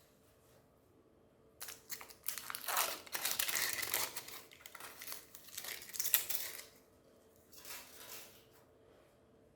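Crinkling and rustling of the chocolates' candy wrappers being handled, starting about a second and a half in, going on for about five seconds, with a shorter burst near the end.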